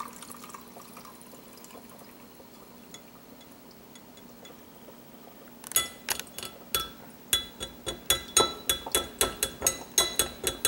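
Cooking oil poured faintly through a small wire-mesh strainer into a glass measuring cup, then, from about six seconds in, the metal strainer clinking quickly against the cup's glass rim, about four sharp clinks a second, to knock the oil through the mesh.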